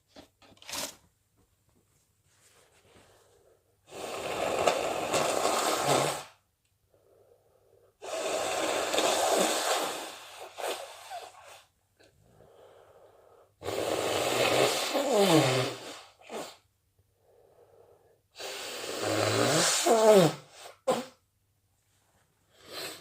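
A person's wet nose blows and sneezes: four loud nasal blasts of about two seconds each, a few seconds apart, each preceded by a faint breath in. The last two trail off in a falling vocal sound.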